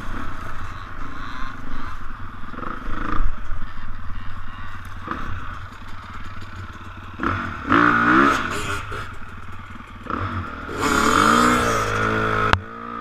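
Dirt bike engine running at low revs, then revved up twice, about seven seconds in and again near the end, its pitch climbing each time. The second rev cuts off sharply.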